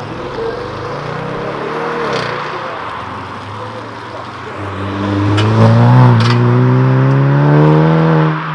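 Large Audi sedan's engine revving hard as it accelerates away, its pitch climbing steadily with a couple of short sharp cracks around a dip near the middle. Before that, another car's engine pulls away more quietly.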